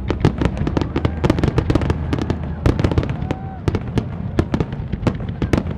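Aerial fireworks display: shells bursting in a rapid, overlapping barrage of sharp bangs and crackles, many each second, over a low rumble.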